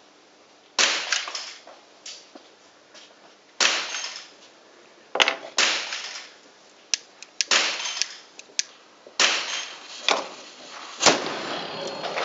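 Black-powder model cannons firing: a string of sharp shots, about seven, each ringing on in the hall, the loudest and deepest near the end.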